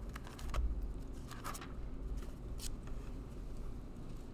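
Bible pages being turned: a few short, crisp paper rustles.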